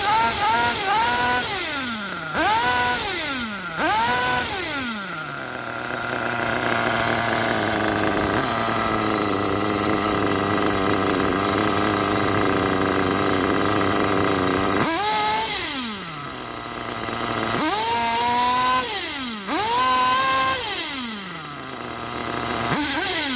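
Freshly rebuilt HPI Big Block 3.5 cc nitro engine on its first run. It is blipped several times, its pitch shooting up and falling back, then settles to a steady idle for about ten seconds, and is revved up and down again several times near the end.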